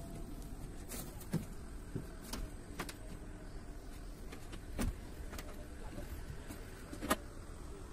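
Steady low outdoor background noise with about half a dozen sharp knocks and clicks scattered through it, the loudest about a second and a half in, near the middle and near the end.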